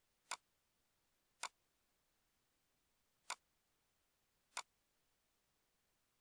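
Four sharp computer mouse clicks, one to two seconds apart, over near silence.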